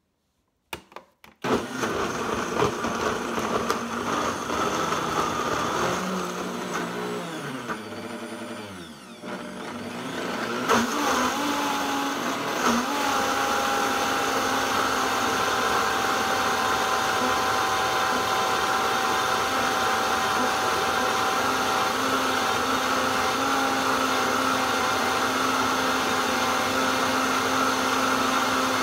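High-speed countertop blender starting about a second and a half in and blending a thick avocado sauce with fresh parsley. Its pitch sinks and dips around nine seconds in, then climbs at about eleven seconds and runs steadily at high speed.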